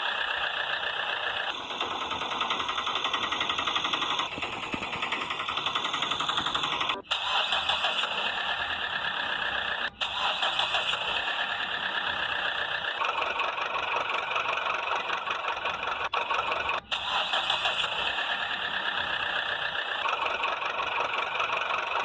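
Steady buzzing motor noise, cut into segments a few seconds long with brief breaks at the joins.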